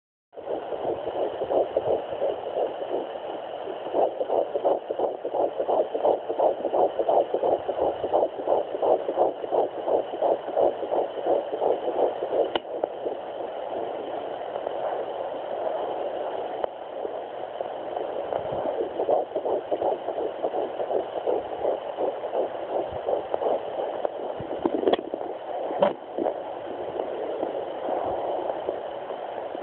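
Fetal heartbeat at 10 weeks' gestation picked up by a Sonoline B handheld fetal doppler: rapid, even pulsing over a steady hiss through the doppler's speaker, strongest in the first half. A few sharp clicks come through midway and near the end.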